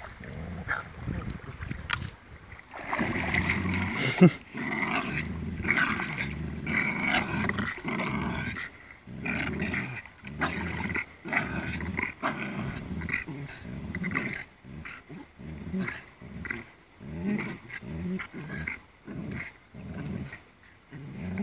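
Dogs growling in repeated bouts while tugging on a stick between them in a tug-of-war game, with a sharp knock about four seconds in.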